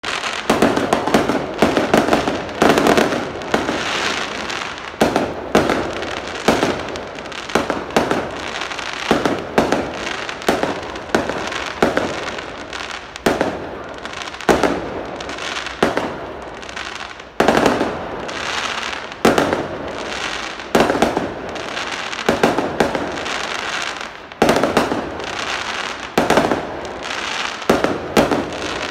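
Aerial fireworks bursting overhead: a rapid, irregular series of sharp bangs, often more than one a second, each trailing off briefly before the next.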